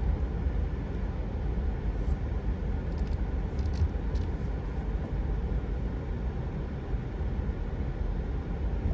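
Pickup truck rolling slowly at low speed: a steady low engine and road rumble, with a few faint ticks a few seconds in.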